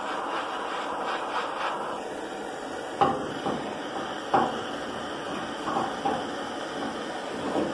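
Hand-held butane blowtorch running with a steady hiss while a wooden lead-loading paddle is worked over the softened body lead on the steel panel. The paddle knocks and scrapes several times, the sharpest about three seconds in. The torch is keeping the lead soft while it is paddled into shape.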